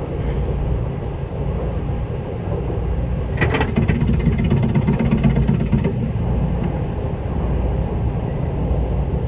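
Running sound inside a Seibu 10000 series electric train, heard from above the line breaker: a steady rumble of the wheels on the rails. About three and a half seconds in, a louder, fast rattling clatter lasts for about two and a half seconds, then stops.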